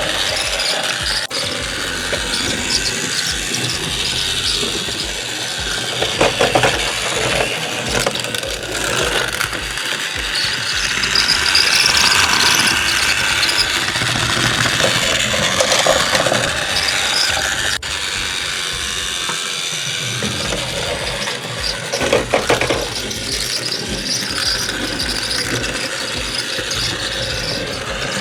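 Battery-powered TrackMaster Thomas toy engine running along plastic track, its motor and plastic gears whirring and rattling and rising and falling in loudness. Its wheels and battery contact are rusty, and the owner notes that it makes a little noise but works.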